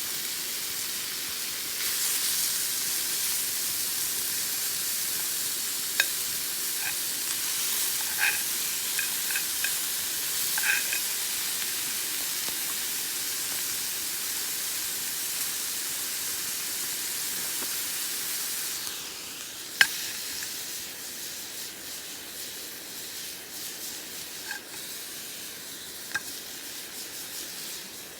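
Food sizzling in a cast-iron skillet over a campfire: a steady hiss that gets louder about two seconds in and eases off a little past two-thirds through. A few sharp clicks break in, the loudest just after it eases.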